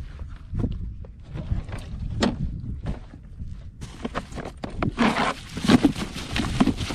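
Knocks and rustling as a landing net and a plastic cooler lid are handled, then a grouper thrashing inside the plastic cooler, a dense flurry of thumps from about five seconds in.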